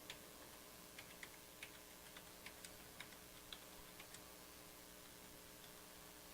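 Near silence with faint, irregular light clicks, about a dozen in the first four seconds, over a steady low hum.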